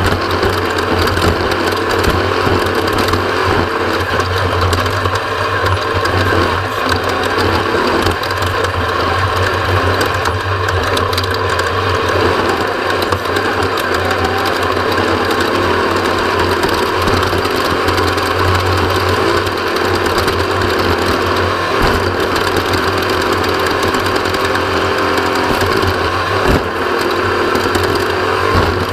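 Off-road race vehicle's engine running steadily at speed, a constant loud mechanical drone with dense road and drivetrain noise.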